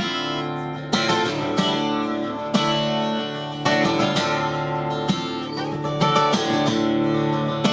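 Acoustic guitar strummed, chords ringing steadily with a sharp strum stroke about every second.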